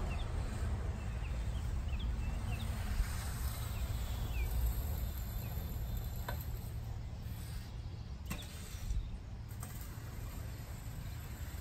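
A 36-inch landscape rake dragged across lawn to spread top dressing, heard faintly over a steady low rumble, with a few short high chirps in the first three seconds.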